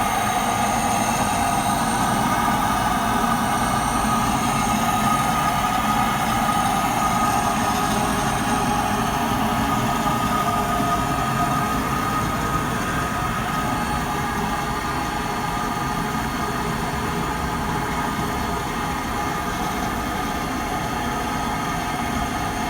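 Machinery turning an elevator drive sheave while its worn rope grooves are recut to an even depth for new cables: a steady mechanical running sound with a few constant tones over a rumbling low end.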